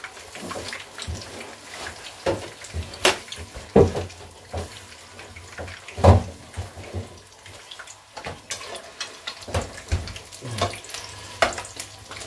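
Kitchen handling sounds: irregular knocks and clinks of utensils and bowls, the loudest about three, four and six seconds in, over a steady hiss of akara (bean fritters) frying in hot oil.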